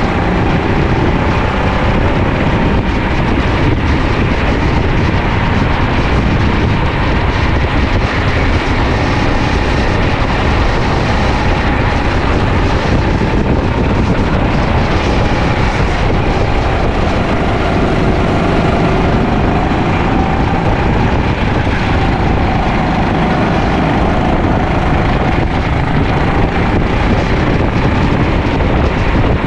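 Sodi LR5 rental go-kart's single-cylinder engine at racing speed, heard from onboard: its pitch rises and falls as it accelerates and slows through the corners, over steady wind and road rumble.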